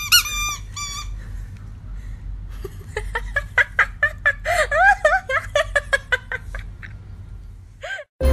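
Rubber squeaky dog toy squeaking as a toy poodle bites and chews it: a few squeaks in the first second, then from about three seconds in a quick, irregular string of short squeaks with clicks of chewing.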